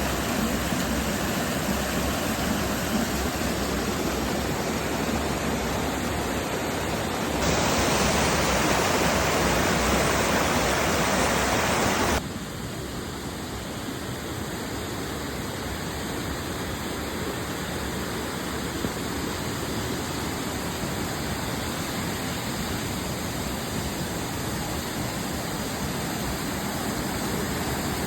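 Waterfall rushing in a steady roar of water. About seven seconds in it turns abruptly louder and brighter, and about five seconds later it drops back just as suddenly to a softer rush.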